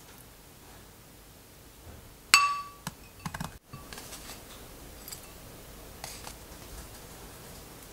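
Ceramic dishes clinking: one sharp, briefly ringing clink about two seconds in, followed by a few lighter taps, then only faint clicks.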